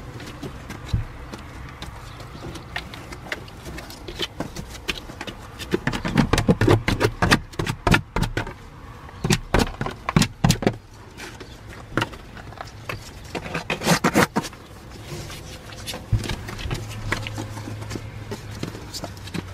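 Rustling and scraping from a Shiba Inu mother dog moving about in a whelping box right beside the microphone, her fur brushing close. The sound comes as clusters of sharp scrapes and knocks, busiest from about a third of the way in and again briefly about two thirds in.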